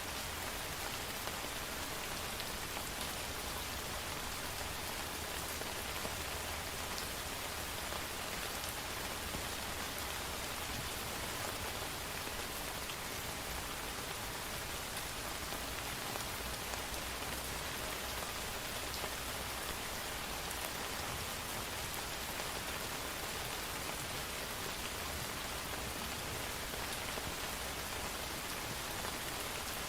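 Steady rain falling on hard surfaces, an even hiss with scattered drop ticks and a faint low rumble underneath.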